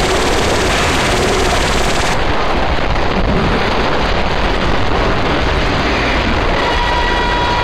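Harsh digital noise music: a loud, dense wall of static-like noise with no let-up. About two seconds in, the highest part of the hiss drops out abruptly, like a cut-up edit. Near the end a steady whistling tone joins the noise.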